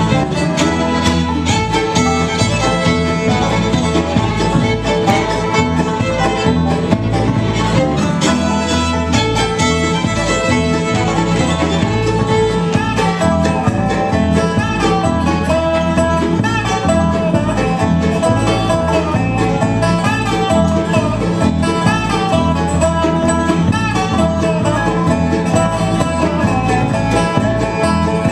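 Bluegrass band playing an instrumental tune: fiddle, banjo, mandolin, acoustic guitar, dobro and upright bass together, with no singing.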